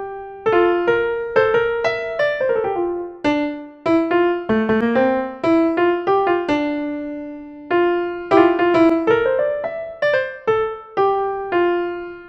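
Background piano music: a melody of struck notes and chords, each one ringing and fading before the next.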